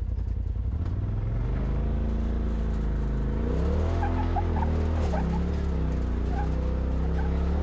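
Side-by-side UTV engine pulling up a rock climb, its pitch rising in two steps about one and a half and three and a half seconds in, with a few short tire chirps on the grippy rock near the middle.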